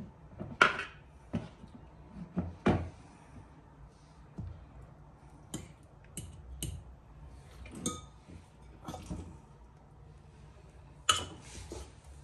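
Kitchen dishes and utensils clinking and knocking in irregular single taps. The loudest come about half a second in and again near the end.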